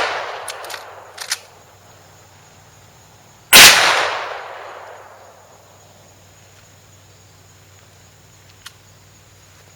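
Marlin 1894C lever-action carbine in .357 Magnum firing a mild 125-grain reload: one sharp shot about three and a half seconds in that rings out for over a second. At the start the tail of the previous shot fades, followed by a few quick metallic clicks of the lever being worked.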